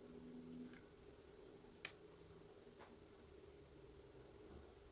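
Near silence: room tone with a faint low hum and a few faint isolated clicks, the clearest about two seconds in.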